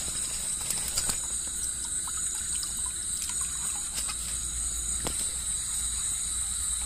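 Steady high-pitched chirring of night insects, with a few light splashes and water dribbling as a fish is handled in the shallow water of a tarpaulin-lined fish trap.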